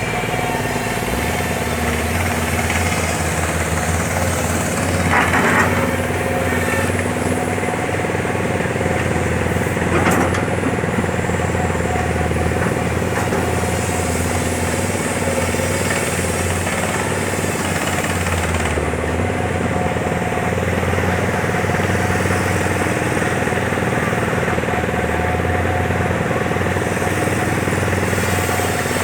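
Diesel engine of a 210-10 hydraulic excavator running steadily under work. There is a brief louder burst about five seconds in and another about ten seconds in.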